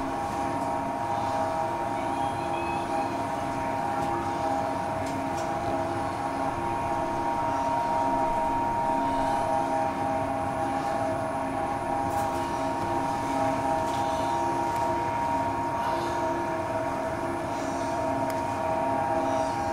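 Electric tram running, heard on board: a steady whine of several tones over the rumble of wheels on the rails, with a few faint clicks.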